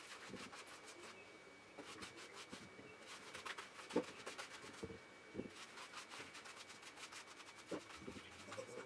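Faint, quick, repeated rasping strokes of a Mars Coat King #20 stripping comb drawn through a wet cocker spaniel's coat.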